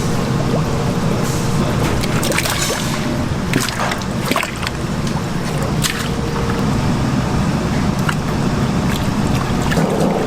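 Kitchen work noise: a steady low hum and rush with scattered clicks and knocks.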